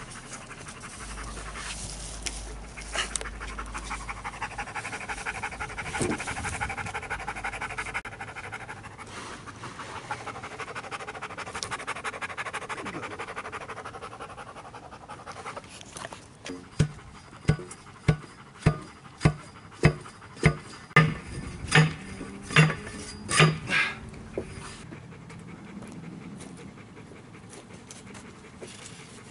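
A dog panting fast and close. In the second half comes a run of about a dozen loud, evenly spaced sharp sounds, roughly one and a half a second.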